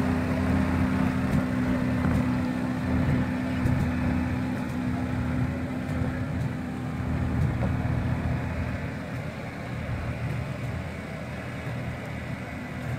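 Lada Niva engine running steadily at low revs as the four-wheel drive crawls down a muddy rut. The engine note grows fainter over the second half as the vehicle pulls away.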